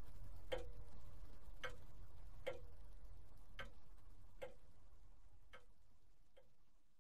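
A clock ticking about once a second, each tick with a short ringing note, fading steadily away along with a low hum beneath it.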